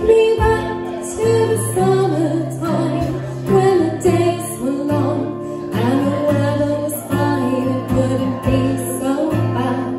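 A woman singing a song live, accompanied by strummed acoustic guitar and ukulele.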